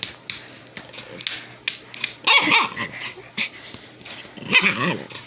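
Pet dog vocalizing twice in short, sharp calls, about two seconds in and again near the end, while being teased in play. A few light clicks come before the first call.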